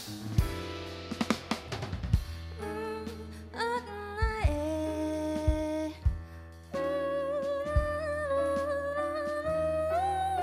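A live jazz quintet playing: a female singer holds long sung notes over double bass and drum kit. The drumming is busy in the first two seconds, and the voice steps up to a higher note near the end.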